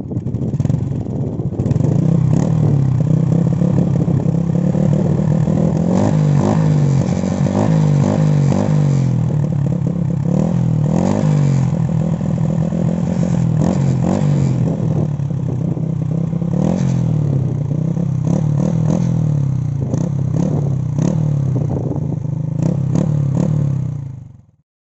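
Motorcycle single-cylinder four-stroke engine, bored up to 54 mm and breathing through an Apido power pipe with its silencer fitted, running and blipped on the throttle again and again, the revs rising and falling. It cuts off suddenly near the end.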